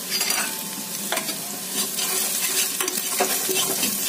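Soya chunks, sliced onion and green chillies sizzling in hot oil in a pressure cooker, stirred with a spatula that scrapes and knocks against the metal pot in irregular strokes.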